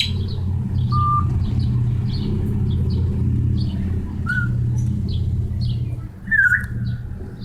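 A pet bird making short clicks and chirps, with a brief whistle about a second in and a louder falling chirp near the end, over a steady low hum.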